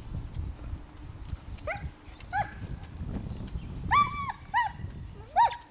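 Portuguese sheepdog barking in short, high yaps, about five of them starting about a second and a half in, one drawn out a little longer, over a low rumble.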